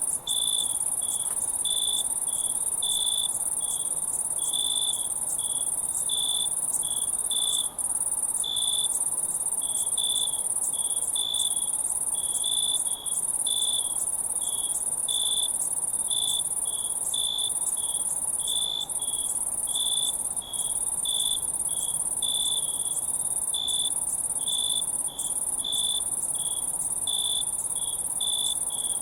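A chorus of crickets: a dense, steady high-pitched trill, with a lower-pitched chirp repeating in an even rhythm about twice a second.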